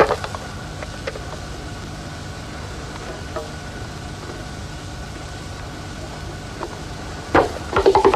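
Fingers tapping lightly on a hand drum: a few faint, scattered taps over a steady hum, then sharper drum strokes near the end that begin a quick run of drumming.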